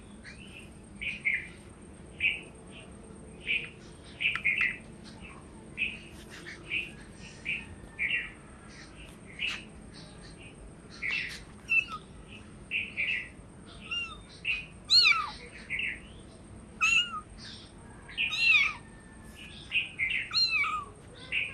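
Kitten mewing over and over in short high-pitched cries, about one or two a second. The cries turn into louder, longer meows in the last few seconds.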